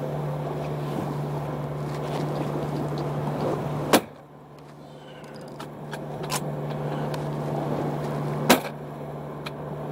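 Two shotgun shots about four and a half seconds apart, over the steady hum of the boat's engine.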